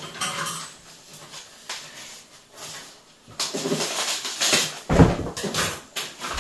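A rolled rug runner and its paper label being handled, rustling and crinkling. About five seconds in, a thump as the rolled rug is set down on the floor, amid more rustling.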